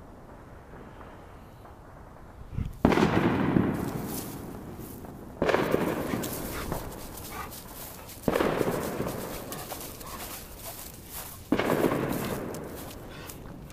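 Fireworks going off nearby: four loud booms a few seconds apart, each followed by a rumbling echo that fades over about two seconds, with scattered crackles between them.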